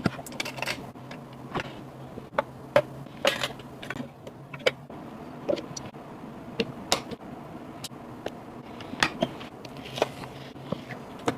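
Irregular clicks, taps and light scrapes of computer hardware being handled and fitted during a PC build, over a faint steady low hum.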